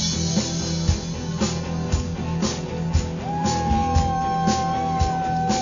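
Live rock band playing loud: drums keep a steady beat of about two hits a second under electric guitars and keyboard. A long high note is held from about three seconds in.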